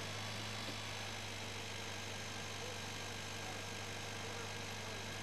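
A tractor engine running steadily at idle, a low even hum that holds without change.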